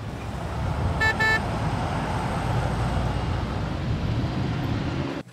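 Steady road and engine noise heard from inside a moving car's cabin, with a short double toot of a car horn about a second in. The noise cuts off abruptly just before the end.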